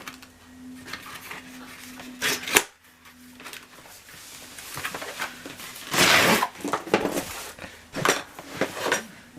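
Packaging being handled and pulled open by hand: a few sharp clicks and knocks, then a loud rustle about six seconds in, followed by more clicks. A faint steady hum sits underneath for the first half.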